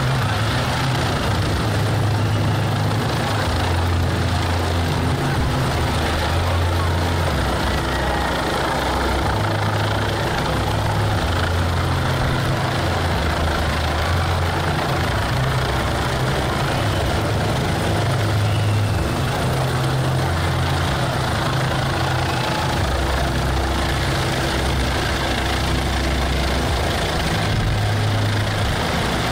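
Light helicopter flying low overhead: steady, loud rotor and engine noise with a low drone that wavers up and down in pitch every second or two.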